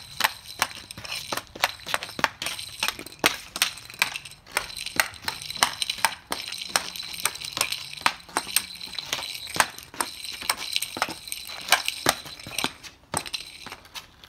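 Hockey stick blade fitted with a wraparound blade cover tapping and pushing a Green Biscuit off-ice puck across a concrete driveway during stick-handling. Rapid, irregular clacks, several a second, with the puck scraping on the rough surface between touches.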